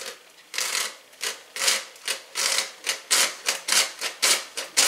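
Hand-crank metal flour sifter being turned, its wire blades scratching dry flour through the mesh screen in a run of even strokes, about two to three a second, starting about half a second in.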